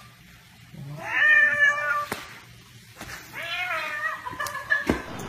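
Domestic cat yowling twice, each a long, drawn-out cry lasting about a second, with a sharp click between them and a thump near the end.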